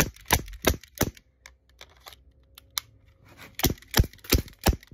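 CO2-powered airsoft pistol firing in quick succession, about three sharp shots a second: four shots, a pause of about two and a half seconds with a few faint clicks, then four more shots near the end.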